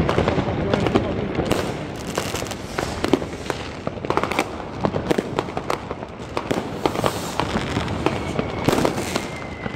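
Many fireworks going off at once: rockets bursting overhead in a dense, unbroken run of sharp bangs and crackles.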